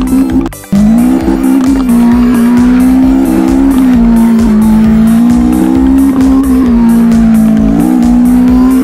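A race-car engine sound revving up and down in pitch, with a short drop-out about half a second in.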